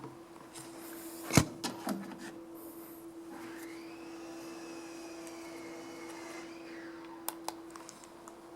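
Harbor Breeze Parklake ceiling fan humming steadily, with a few sharp clicks about a second in and again near the end. In the middle a whine rises and then falls away.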